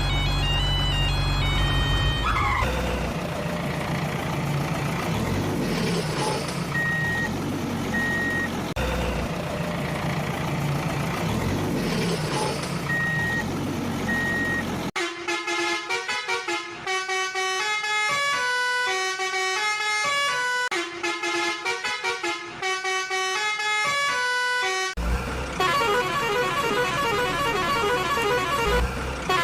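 Truck engine sound with rising and falling pitch and two pairs of short beeps, then from about halfway a bright melodic music track.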